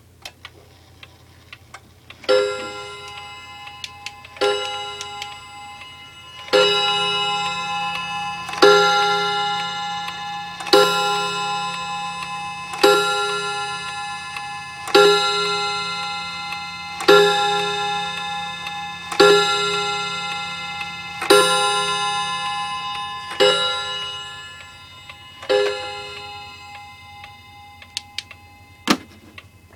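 D&A 31-day spring-wound wall clock striking twelve for the hour: twelve ringing chime strikes about two seconds apart, each dying away slowly, with the movement's ticking underneath and a sharp click near the end.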